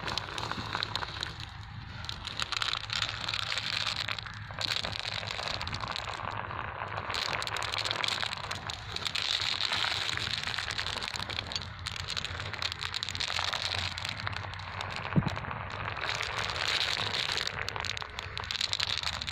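Glass marbles rolling down a channel in dry, packed sand, giving a steady gritty crackle with small clicks. There is one sharp thump about fifteen seconds in.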